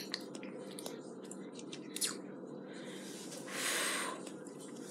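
A few small mouth clicks and lip smacks, then about three and a half seconds in a hard breath blown out through pursed lips for about half a second, a reaction to the burn of a spoonful of Tabasco hot sauce just swallowed.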